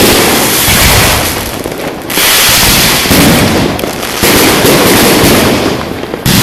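Fireworks going off at close range: a loud, dense crackling and hissing that surges abruptly about two seconds in, again about four seconds in, and once more near the end.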